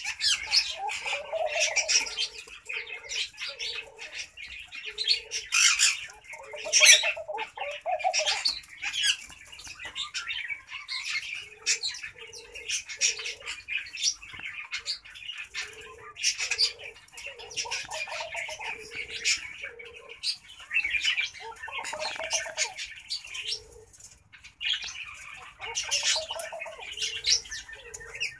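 Laughing dove cooing: runs of short, soft, low notes repeated in quick succession, coming again every few seconds. Over them runs a constant high-pitched chirping of other small birds.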